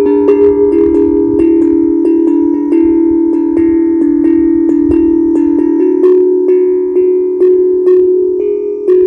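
Steel tongue drum ('happy drum') played by hand: single notes struck about two to three times a second, each ringing on under the next so the tones overlap into a sustained, bell-like wash.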